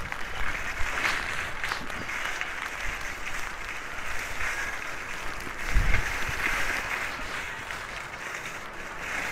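Skis sliding over packed snow, a steady hissing scrape. A short gust of wind on the microphone about six seconds in.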